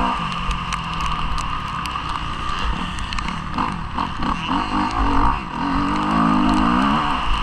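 Motocross bike engine being ridden hard, revving up and down through the gears. Its pitch drops right at the start, runs lower and uneven through the middle, and climbs again in the last second and a half, with wind rumble on the microphone throughout.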